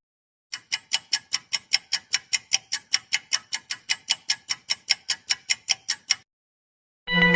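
Ticking-clock sound effect: a fast, even run of sharp ticks, about five a second, that lasts nearly six seconds and then stops abruptly.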